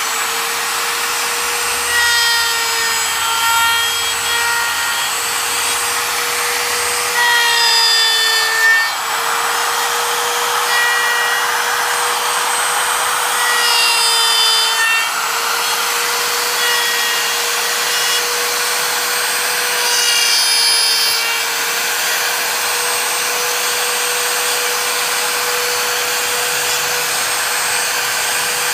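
Handheld electric router running at full speed, its bit cutting dovetail tails into the end of a wooden board along a dovetail jig's template. The motor's steady whine gets louder and rougher each time the bit bites into the wood, about six passes in the first twenty seconds, then runs steady with the bit free.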